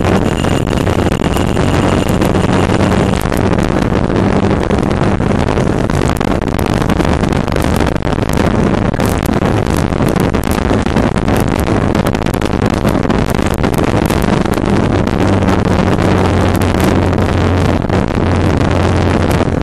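Wind rushing and buffeting over the microphone of a Yamaha R15 motorcycle cruising at highway speed, with the engine's steady low hum underneath.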